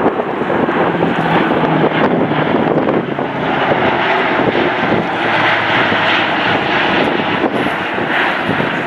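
Airbus A400M Atlas's four Europrop TP400-D6 turboprop engines and eight-bladed propellers, a loud steady drone as the aircraft passes close overhead, fading slightly near the end.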